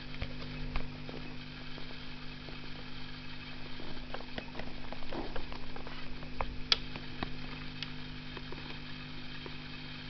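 Steady electrical hum from the Fialka-2 on its first switch-on after repair, with scattered clicks and knocks as its controls are handled. The sharpest click comes about two-thirds of the way through.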